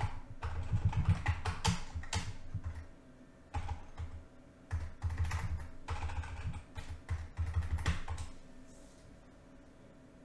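Typing on a computer keyboard: clusters of keystrokes with short pauses, entering a command, stopping about eight seconds in.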